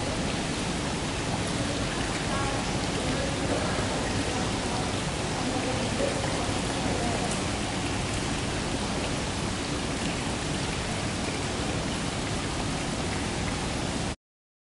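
Steady rushing hiss of flowing water that cuts off abruptly near the end.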